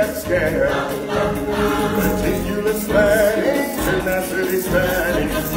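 Live stage-show music with a choir of voices singing.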